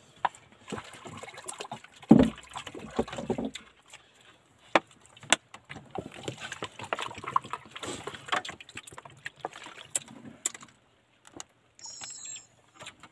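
Water poured from a plastic bottle into a plastic cup, among clicks and crinkles of the bottle being handled. A short loud low sound comes about two seconds in.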